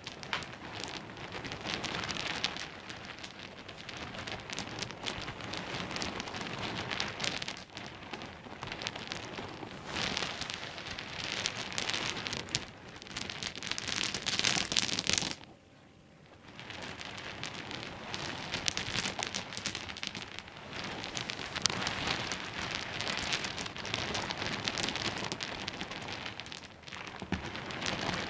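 Small pebbles knocking and rattling against one another in a dense, rain-like clatter of tiny clicks. It drops out briefly a little past halfway, then resumes.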